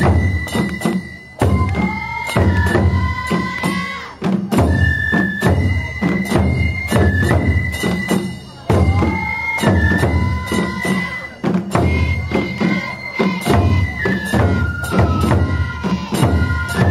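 Japanese festival taiko music. Transverse bamboo flutes (shinobue) play a high held melody over a steady beat of small drums struck with sticks.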